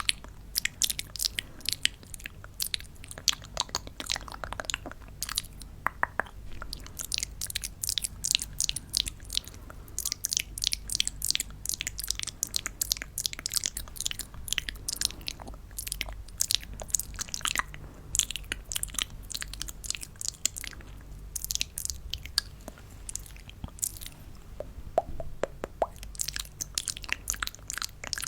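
Close-miked hard candies clattering and tumbling against one another: a dense run of crisp little clicks and crackles with brief lulls.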